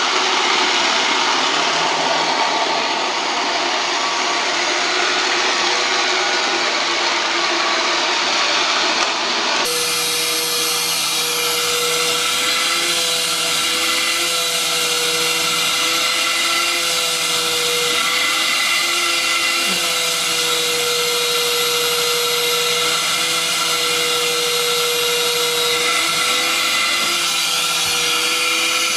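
Vacuum cleaners running: first a steady rushing noise, then, after a cut about ten seconds in, another vacuum cleaner's motor with a steady whine that wavers slightly in pitch.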